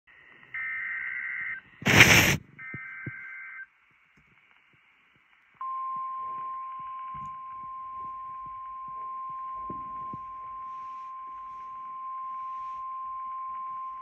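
NOAA Weather Radio alert playing through a radio receiver. First come two short bursts of buzzy two-tone SAME data header, with a loud burst of static between them. After about two seconds of silence, the steady 1050 Hz warning alarm tone begins about five and a half seconds in and holds, over faint radio crackle.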